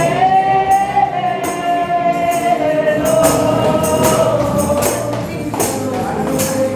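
Worship music: a sung melody with long held notes over a steady beat, with tambourine jingles on the beat.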